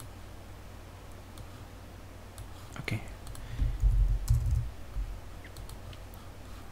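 Scattered computer keyboard clicks as a command is typed, with a few louder low thuds about halfway through.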